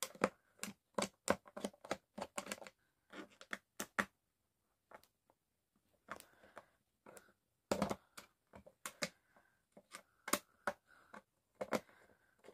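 Screwdriver turning stiff screws out of a speaker box: a run of irregular sharp clicks and ticks, some with a short squeak.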